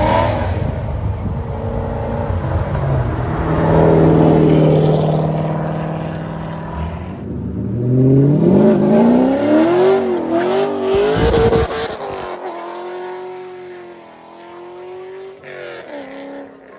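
2003 Chevrolet Corvette C5 Z06's cammed LS6 V8, breathing through long-tube headers with the cats and mufflers deleted, running loud. It holds a steady note near the start, revs up with a rising, wavering pitch in the middle, then settles to a steadier note that fades away.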